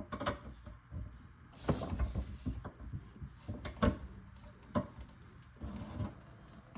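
Scattered knocks and clunks with a little rubbing as a garbage disposal unit and its fittings are handled and set in place under a sink.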